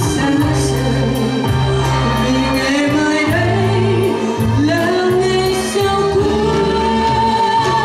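Woman singing a melody live, backed by a band of drums, electric guitars and bass, with a steady cymbal beat.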